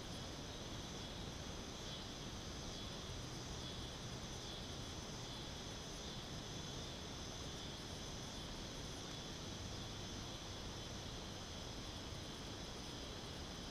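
Steady chorus of insects singing from the trees, an even high-pitched buzz that holds without a break over a faint background hiss.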